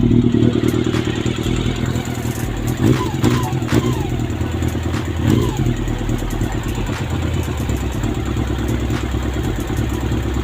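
Freshly rebuilt Honda CB400 motorcycle engine idling steadily, with a light ticking from the top end that the owner thinks may be new parts not yet bedded in.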